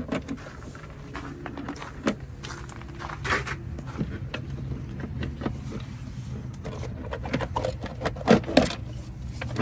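Plastic engine air filter housing being worked loose and lifted out: scattered knocks, clicks and scrapes of plastic, busiest about eight seconds in, over a low steady hum.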